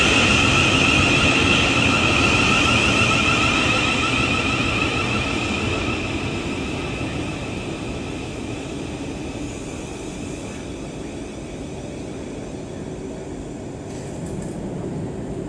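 Class 707 electric multiple unit moving slowly past: a high electric whine with wheel and rail rumble, loudest at first and fading over the first six seconds or so, leaving a low steady rumble.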